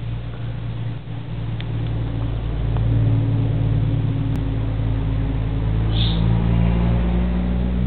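A 2011 Camaro SS's 6.2-litre LS3 V8 idling through its stock exhaust, a steady low note that grows a little louder about three seconds in.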